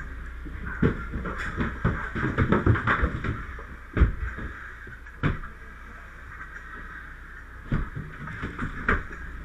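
Scattered knocks and clatters over a steady low rumble; the loudest single knock comes about four seconds in.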